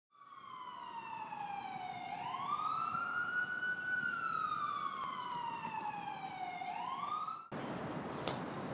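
Emergency vehicle siren wailing: one tone that slowly falls, sweeps quickly back up and falls again. It cuts off abruptly about seven and a half seconds in, leaving a steady background hiss with a few faint clicks.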